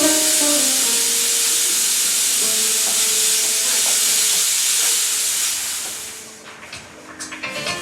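A loud, steady hiss like escaping steam or spraying gas, with faint music underneath; it fades away about six seconds in and the music comes back up near the end.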